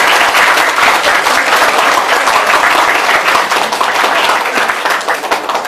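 A class of high-school students applauding together: a dense, loud round of clapping that thins to scattered single claps near the end.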